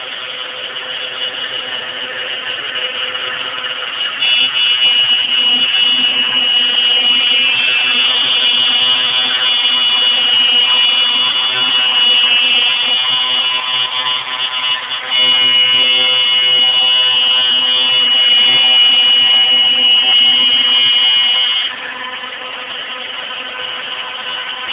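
CNC router spindle running with a steady high whine as the bit routes grooves in a wood sheet. The sound gets louder about four seconds in, louder again around fifteen seconds, and drops back about three seconds before the end.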